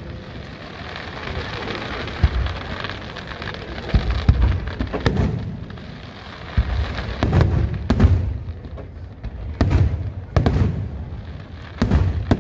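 Aerial firework shells bursting in a professional display, about a dozen deep booms at uneven intervals, sometimes two in quick succession, over a continuous hiss and crackle.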